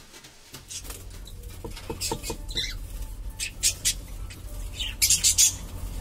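Cockatiels calling in several short, raspy, hiss-like bursts over a low steady rumble.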